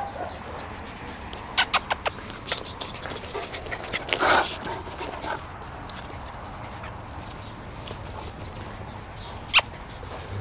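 Small dogs at play, mouthing and scuffling, with a quick run of sharp clicks a second and a half in, a short noisy burst about four seconds in, and one loud sharp click near the end.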